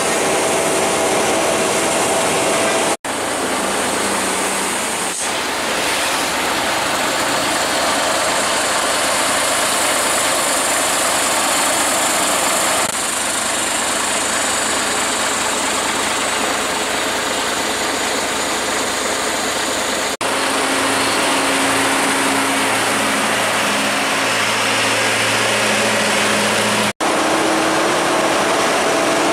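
Heavy truck engines running steadily with road noise, a dense even rumble and hiss with a low hum. The sound breaks off for an instant three times, at cuts in the footage.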